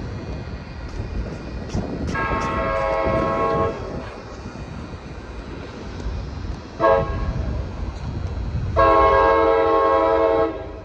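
Locomotive air horn of an approaching train sounding a chord of several notes in three blasts: long, short, then long and loudest near the end. A low rumble from the train runs underneath.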